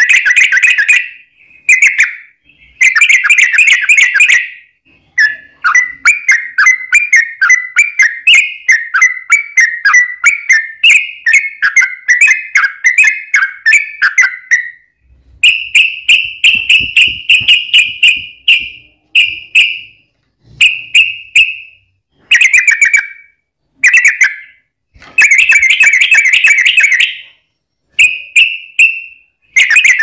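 Yellow-vented bulbul (trucukan) song played loud: a rapid-fire run of quick, bubbly chattering notes. Shorter bursts with brief pauses come at the start and near the end, with a long unbroken run in the middle.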